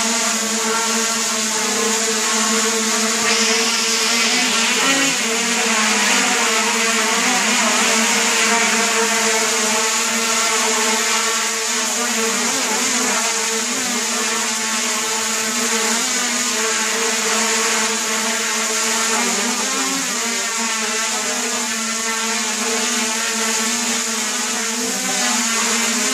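Homemade quadcopter's four brushless motors and propellers spinning with a steady whining hum. The pitch wavers slightly now and then as the PID flight controller adjusts motor speeds to level the frame.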